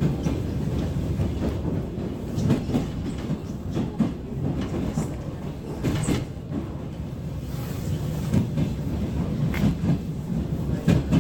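ER9M electric multiple unit on the move: a steady low rumble of wheels on rail, broken by sharp, unevenly spaced knocks as the wheels clatter over rail joints.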